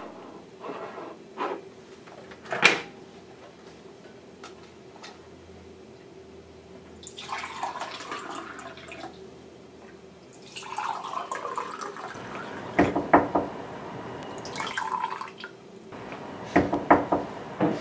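Liquid poured into a ceramic mug in two pours, the second one longer, with clinks of the mug and metal jug being handled on the counter at the start and near the end.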